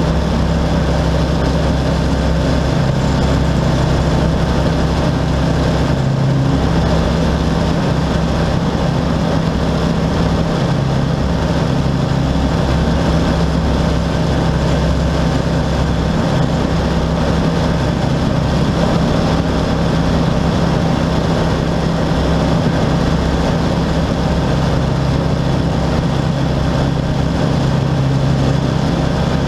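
Rans S-6S Coyote II light aircraft's engine and propeller droning steadily, heard from inside the cockpit in flight.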